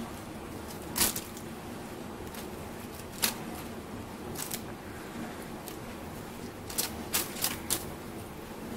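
Crinkling of a thin plastic cereal bag as a kitten paws it, pulls it out of a soft pet carrier and drags it, in short separate crackles with a quick cluster of four near the end.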